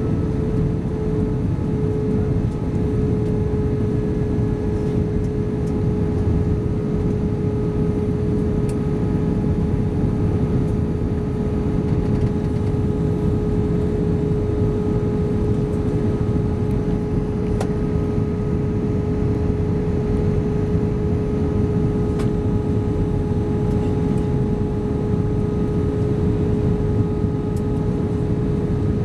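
Airbus A320 cabin noise at an over-wing window seat in flight: a steady rush of airflow and the drone of its IAE V2500 turbofans, with a steady mid-pitched hum on top.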